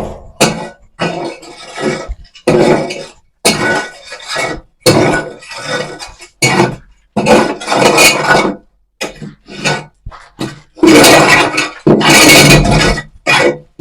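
Lumps of charcoal clinking and sawdust rustling as the litter is mixed, in repeated scoops about a second apart, with a longer, louder stretch near the end.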